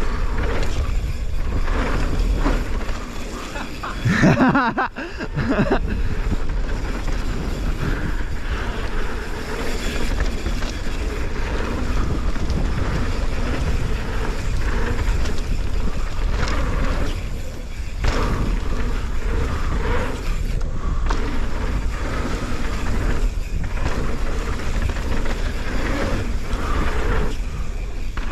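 Wind buffeting an action camera's microphone over the tyre and chassis noise of a mountain bike being ridden on a dirt trail. About four seconds in a brief wavering tone lasts about a second.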